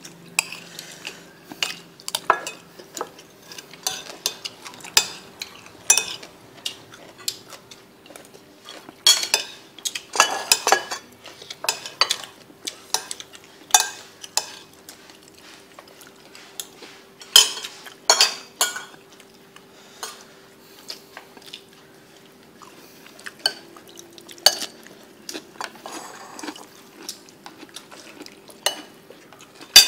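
A spoon and other utensils clink and scrape against ceramic bowls during a meal. The clinks are short and sharp, come at irregular intervals, and have brief pauses between them.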